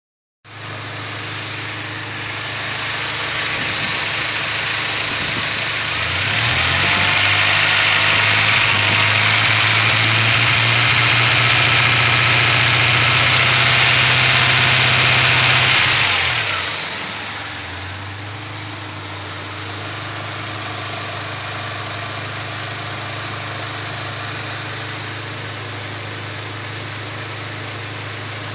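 2000 Honda Prelude's 2.2-litre four-cylinder engine idling, then revved up about six seconds in and held at a steady higher speed for about ten seconds before dropping back to idle. The owner reports a misfire that shows up only at about 2,000 rpm.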